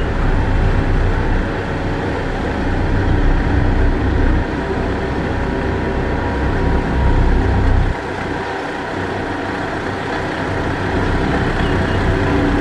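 Heavy diesel engine of a motor grader running steadily while working gravel, with a low rumble and a grinding, noisy haze. The sound drops sharply about eight seconds in, then builds again.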